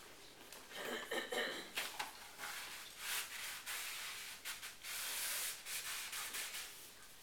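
Rubbing and rustling against a large paper sheet on a wall, in irregular short scrapes with a longer, steadier rub about five seconds in.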